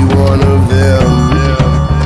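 Soundtrack music with drums and a bass line; the bass changes note about halfway through.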